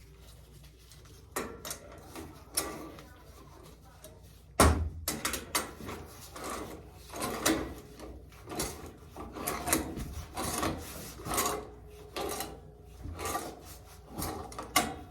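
A threaded black-iron 90° elbow being screwed onto a taped and doped pipe nipple. There is a sharp knock about four and a half seconds in, then repeated scraping strokes about once a second as the fitting is turned on the threads.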